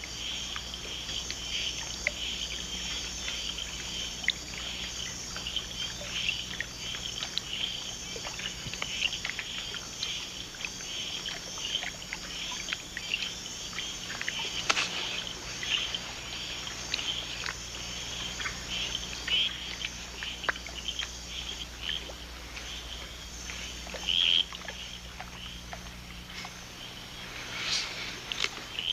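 Night chorus of calling frogs and insects: many short, irregular chirps and clicks over a steady high trill, with a low steady hum underneath.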